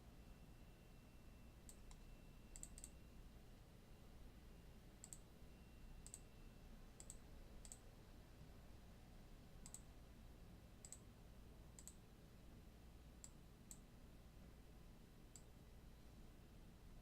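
Faint computer mouse clicks, irregular and some in quick pairs, over a low steady hum.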